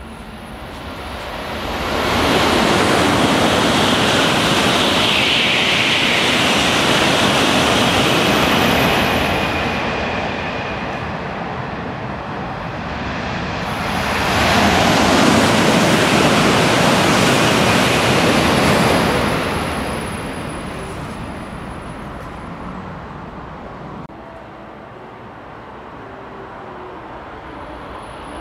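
Shinkansen bullet trains passing through the station at full speed, twice: each time a loud rushing noise swells up within a couple of seconds, holds for several seconds and fades, the first pass with a strong hiss.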